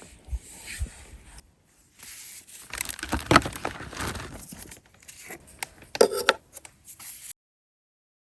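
Close handling noises: rustling, crinkling and light scraping with small clicks, as of packaging or gear being handled, cutting off abruptly near the end.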